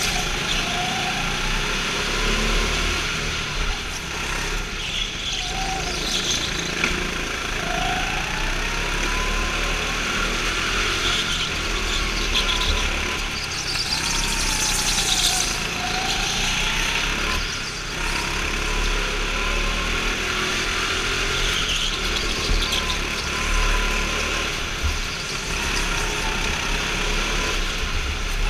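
Go-kart engine running under the driver's throttle, its pitch rising and falling again and again as the kart speeds up along the straights and slows for the corners.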